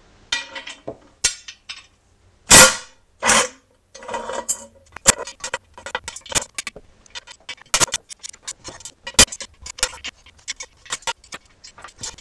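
Irregular metallic clinks and clicks of hand tools and bolts being handled around a chrome three-piece wheel, with two louder, longer clanks between two and four seconds in.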